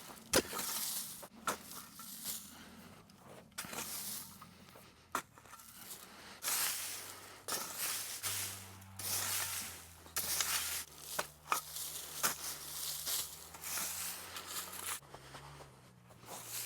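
Folding shovel scraping and sweeping dry leaf litter and twigs off the ground, in repeated strokes about one a second, the dry debris crunching and crackling, with a few sharp knocks of the blade.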